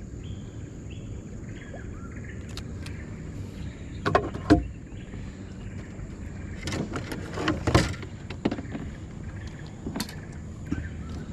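Knocks and bumps on a small boat over a steady low rumble, the loudest pair about four seconds in, a cluster about halfway through and another single knock near the end.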